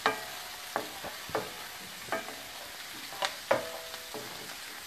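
Diced onions sizzling in bacon fat in a stainless steel skillet, with a steady hiss. A wooden spatula stirs them and knocks against the pan several times, each knock leaving a short metallic ring.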